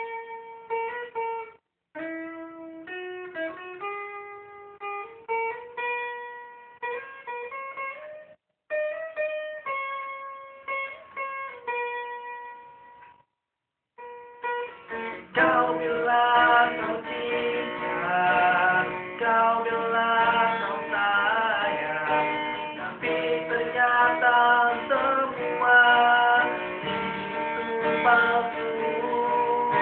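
Acoustic guitar music in an instrumental break. Single notes are picked slowly at first, with brief pauses. About halfway through it shifts to fuller, louder strummed chords.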